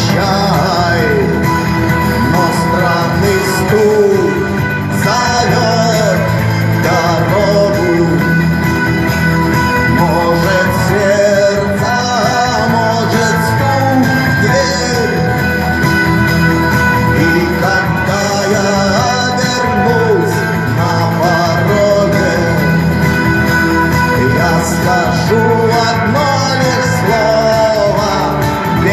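Rock song playing: a sung melody over a steady guitar band.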